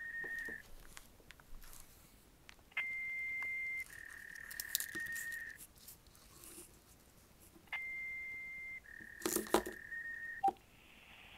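Repeating electronic tones on a phone voicemail recording. A steady beep of about a second steps down to a slightly lower tone lasting about a second and a half, with faint clicks and crackle over it. The pair comes round about every five seconds.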